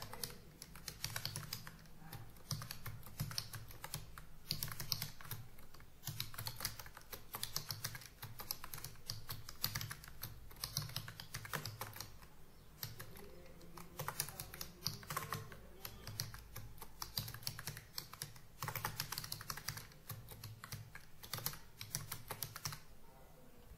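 Fast, continuous typing on a computer keyboard, the rapid key clicks broken by brief pauses, stopping shortly before the end.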